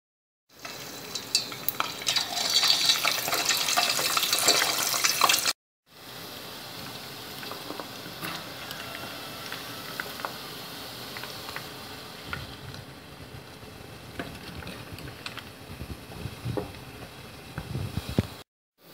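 Pieces of pork deep-frying in hot oil: a loud, dense sizzle full of sharp pops for the first five seconds or so, then a quieter, steady bubbling sizzle. Scattered clicks come from a slotted metal spoon stirring in the pot.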